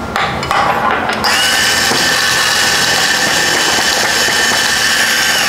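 Electric coffee grinder grinding a single dose of roasted beans on a fine setting. The motor starts about a second in, runs with a steady whine and cuts off near the end, after a few light clicks.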